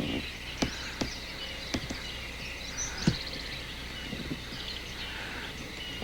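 Outdoor field ambience with faint songbird chirps and a few scattered light knocks.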